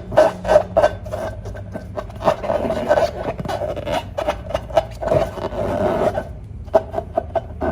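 Hands working balloons and slime, making irregular rubbing, crackling and squishing sounds with a brief lull about six seconds in.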